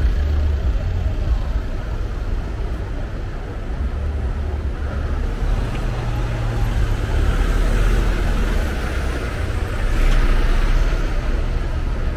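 Road traffic on a busy city street: vehicles passing with a steady low rumble, swelling louder in the second half.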